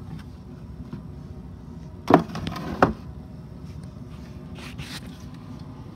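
Two sharp knocks about three quarters of a second apart, from things being handled in a wooden kitchen cabinet, with faint rustling between them.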